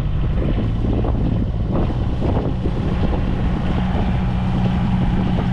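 54 hp Yanmar diesel inboard of a sailing yacht being throttled up from about 1,200 toward 1,800 RPM: its hum rises in pitch over the first few seconds, then runs steady. Wind buffets the microphone throughout.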